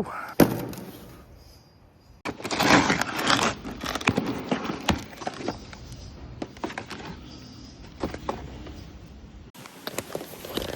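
Building-site work noise: a sharp knock, then from about two seconds in a long run of clattering and rattling with scattered clicks, changing abruptly near the end.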